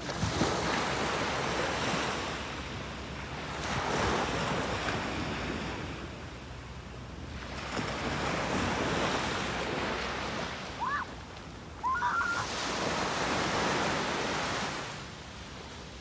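Small waves breaking and washing up a sandy shore, swelling and fading about every four seconds. Two short high cries come a little past the middle.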